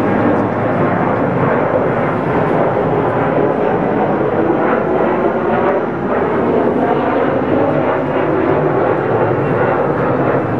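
Twin-engine jet airliner climbing out overhead just after takeoff, its engines giving a loud, steady jet rumble with small swells.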